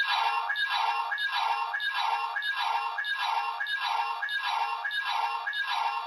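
Ultraman color timer warning sound played from the speaker of a DX Guts Hyperkey Premium+ toy: an electronic beep repeating about one and a half times a second, cutting off suddenly at the end. In the show this blinking signals that Ultraman's energy is running low.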